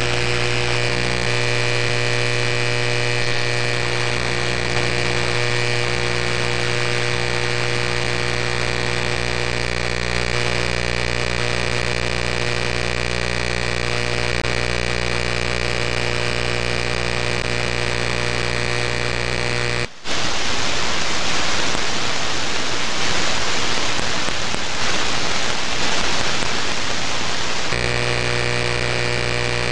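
Flex 5000A receiver audio on the 6-metre band full of power-line noise: a steady, harsh buzz with a hum under it. About two-thirds of the way through it cuts out for an instant and turns into a plain, even hiss, the buzz removed by the noise blanker, then the buzz comes back for the last couple of seconds.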